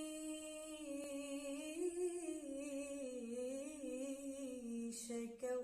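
A young girl's unaccompanied voice holding one long, wavering sung note on a drawn-out vowel in an Arabic devotional chant, with a brief break near the end.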